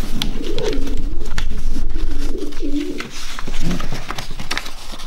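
Racing pigeons cooing: a run of low, wavering coos through the first three seconds and one more a little later, with paper rustling and clicking as pedigree sheets are handled.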